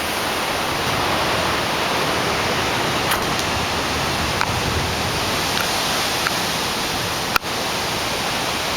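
Steady, even rush of a severe thunderstorm's heavy rain and wind, with a few faint clicks.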